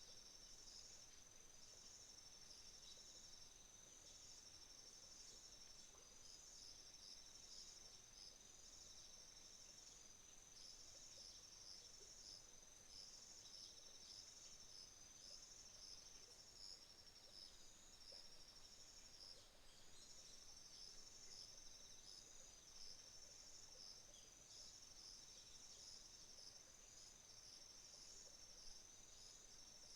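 Faint chorus of autumn insects, crickets, with several high-pitched pulsing trills overlapping steadily, one briefly dropping out about two-thirds of the way through.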